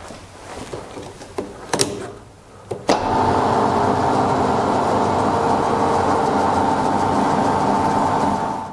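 A few clicks and knocks, then a click about three seconds in as an electric two-post car lift starts, its motor running with a steady hum as it lowers the car.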